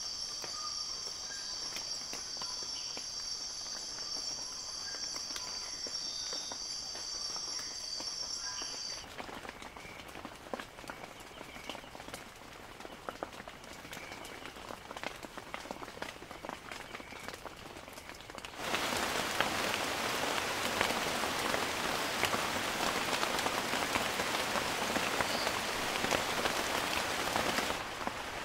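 Rain falling in scattered drips, with insects droning on steady high notes for the first third. About two-thirds in, much heavier, dense rain starts abruptly, as if a new recording begins, and eases slightly just before the end.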